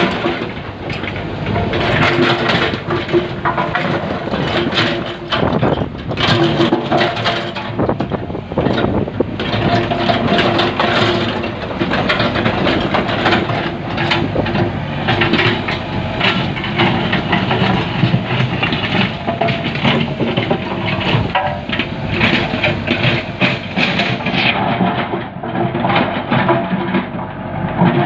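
Komatsu backhoe's diesel engine running steadily under working load, with frequent knocks and clanks from the digging.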